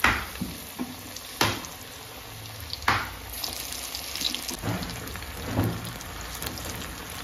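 Chicken pakoras dipped in gram-flour batter being deep-fried in a wok of hot oil: a steady bubbling hiss, with several sharp spits of sizzle as more pieces are dropped into the oil, the first three about a second and a half apart.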